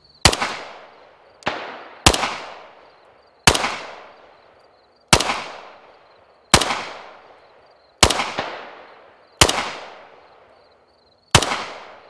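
Nine rifle shots fired at uneven intervals of roughly half a second to two seconds, each a sharp crack followed by a long echoing tail.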